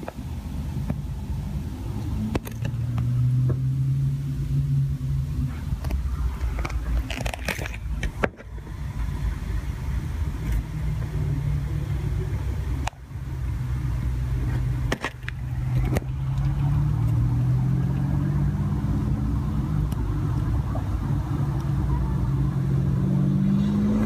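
Lamborghini Countach's V12 engine running with a deep, steady note, swelling at times, then rising in pitch near the end as the car accelerates.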